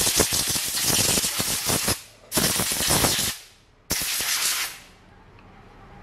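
Compressed-air blow gun blasting through a carburetor that is being cleaned, in three bursts of rough, crackling hiss. Each burst cuts off sharply, and the last one ends a little under five seconds in.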